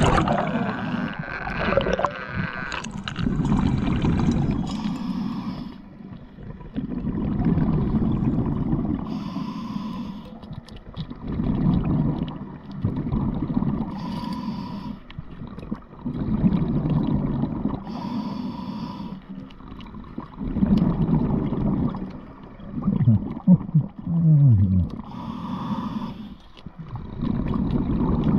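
Scuba diver breathing through a regulator underwater: a short hiss on each inhale and a rumble of exhaust bubbles on each exhale, repeating about every four seconds. A brief falling tone sounds late on.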